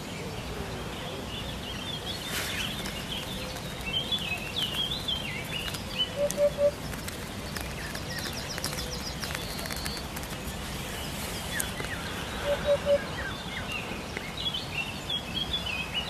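Eurasian hoopoe calling its three-note 'oop-oop-oop', given twice about six seconds apart; these are the loudest sounds. Other small birds twitter at a higher pitch in between.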